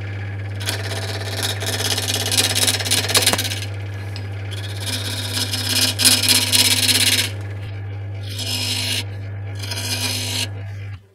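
Belt-driven wood lathe running at about 1000 rpm with a steady motor hum while a turning tool cuts into the spinning, out-of-round walnut wheel blank in four bursts of scraping cuts. The motor hum stops shortly before the end as the lathe is switched off.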